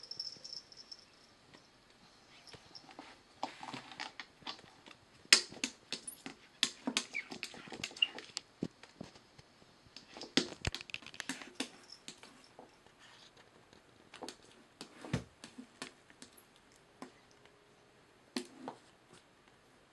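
A cat's paw tapping and scratching at the glass face of a framed butterfly clock lying on carpet: irregular clicks and taps, in a busy run through the middle and a few more near the end.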